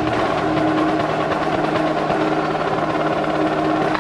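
Indoor percussion ensemble music: a steady held tone under a dense texture of quick strokes.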